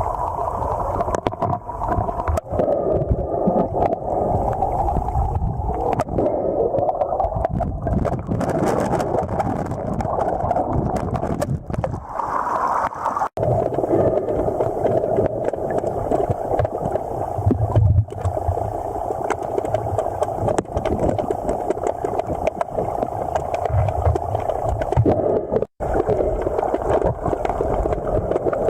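Steady rushing, gurgling noise of a river current heard underwater, with the sound cutting out briefly twice.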